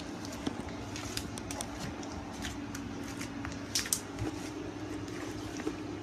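Scattered small squishes, clicks and crackles of a large mass of slime being handled, with a short cluster about two-thirds of the way in, over a steady low hum.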